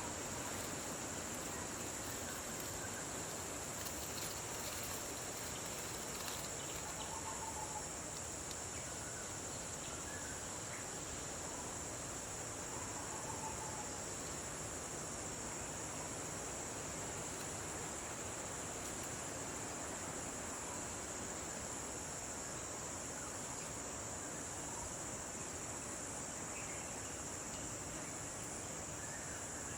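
Steady high-pitched chorus of insects, a continuous shrill hum, with a few faint short bird chirps now and then.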